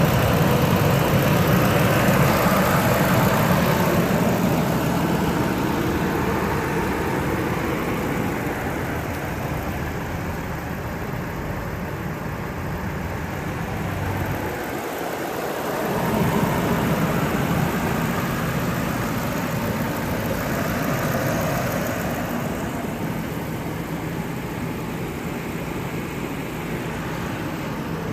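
Freshly replaced engine of a 2006 Ford Expedition, a 5.4-litre V8, idling steadily, heard close up at the motor.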